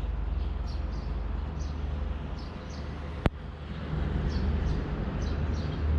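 Outdoor ambience: a steady low rumble with short, high, falling bird chirps several times a second, and one sharp click about three seconds in.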